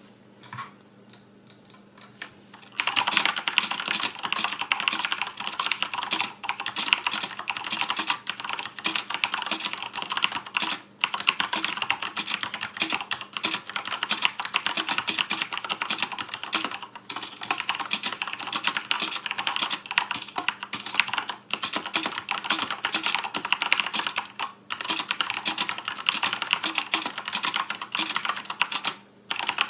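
Corsair K70 mechanical keyboard with Cherry MX Red linear switches being typed on: a few separate keystrokes, then fast, continuous typing from about three seconds in, broken by a few short pauses.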